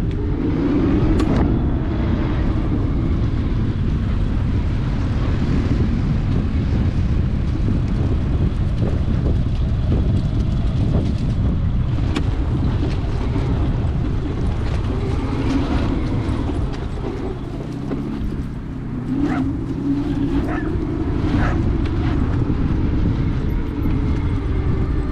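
Outrider Coyote electric 4WD all-terrain vehicle on the move: a steady low rumble of the ride with a few sharp knocks along the way.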